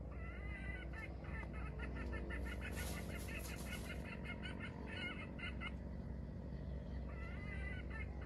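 Chicken clucking in fast runs of short calls, a few a second, that pause briefly and start again near the end. A short hiss sounds in the middle, over a steady low background hum.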